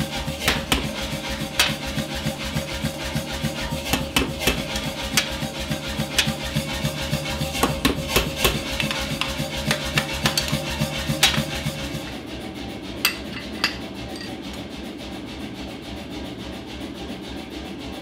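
Hammer blows striking a handled hot punch being driven through a glowing hammer blank on an anvil, a strike every fraction of a second. The blows stop about two-thirds of the way in, and two lighter strikes follow about a second later.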